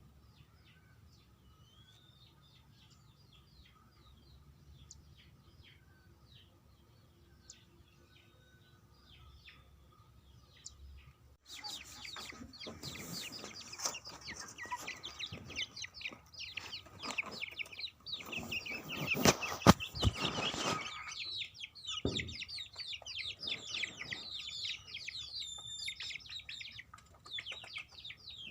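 Young chicks peeping: faint, scattered high peeps at first, then from about eleven seconds in a loud, dense chorus of many chicks peeping, with rustling noise underneath.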